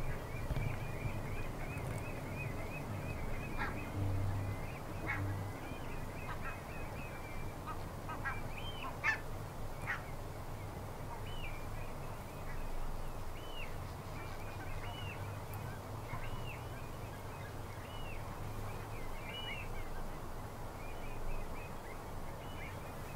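Barnacle geese calling in a flock, with other meadow birds giving short, high calls that rise and fall, about one a second in the second half, over a steady low rumble.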